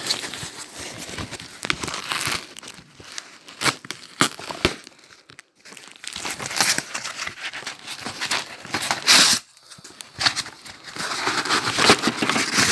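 Packaging crinkling and tearing in irregular handfuls, with two short pauses, as a toy washing machine is pulled out of its wrapping.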